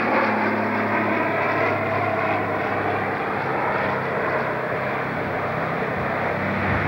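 Approaching locomotive heard from the platform, a steady engine drone with a low hum.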